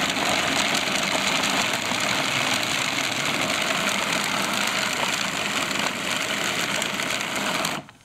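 Food processor motor running steadily at full speed, chopping a dry coconut mixture, then switched off abruptly near the end.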